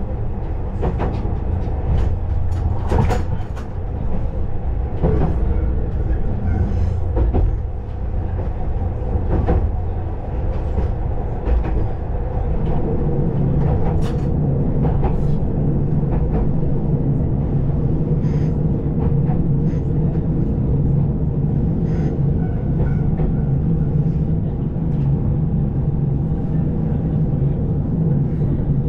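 KiHa 20-series diesel railcar running, heard from inside the car: a low rumble with irregular clicks and clatter from the wheels and rails. About twelve seconds in, a steady drone from the railcar's diesel engine comes up and holds.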